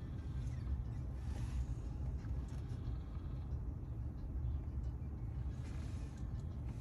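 Steady low rumble inside a pickup truck's cabin.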